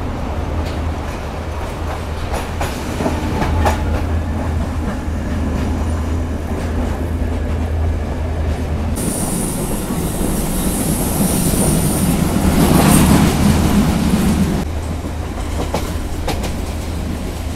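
Diesel multiple unit train running at speed, heard from an open doorway: a steady rumble with the clickety-clack of wheels over rail joints. For several seconds in the middle a louder, high hissing rush rises over it, then falls back.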